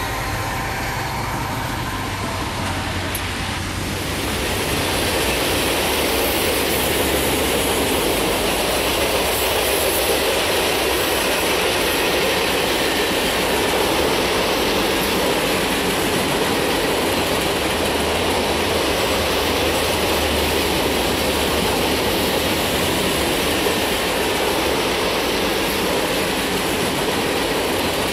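Freight train cars rolling past on the rails, a steady rumble and rattle that grows louder about four seconds in and then holds.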